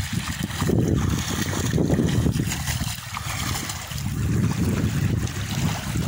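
Wind buffeting the microphone in a heavy, unsteady low rumble, over water lapping and splashing from a swimmer's front crawl strokes.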